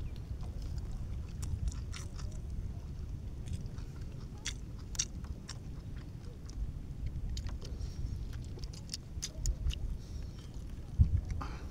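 A person chewing mouthfuls of rice and raw fish with small wet mouth clicks and smacks, over a steady low rumble. A few louder low knocks come near the end.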